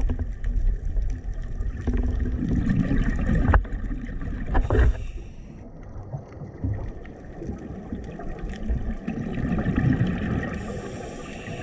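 Scuba diver's breathing through a regulator, heard underwater through a camera housing: muffled rumbling surges of exhaled bubbles, with a couple of sharp knocks about three and a half and five seconds in.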